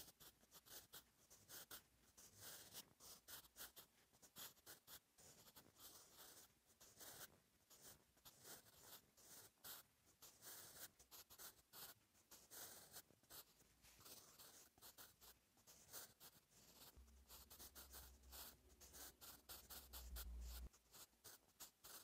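Soft scratching of a Staedtler Mars Lumograph Jumbo 8B graphite pencil on notebook paper: a quick run of short strokes as Korean cursive letters are written. A low rumble comes in for a few seconds near the end.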